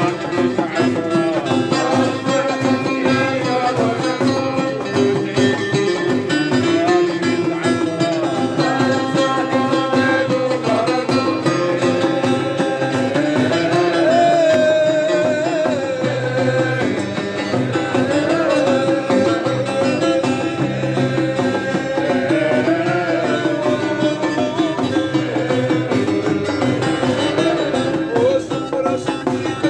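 Traditional Middle Eastern–style folk music played live, with plucked strings and hand drums under a wavering melody, continuing steadily throughout.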